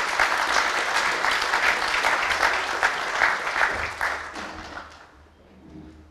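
Audience applauding, the clapping fading away about four and a half seconds in.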